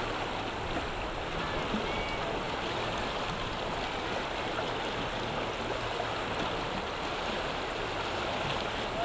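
Steady rush of river rapids: fast spring-flood whitewater churning through standing waves.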